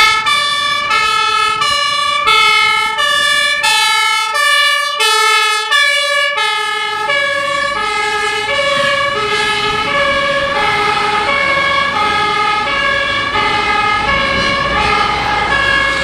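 Fire engine two-tone siren (German Martinshorn) sounding its alternating high and low notes, switching about every half second without a break. It is clearest and fullest a few seconds in as the truck passes close, then a little duller as it draws away.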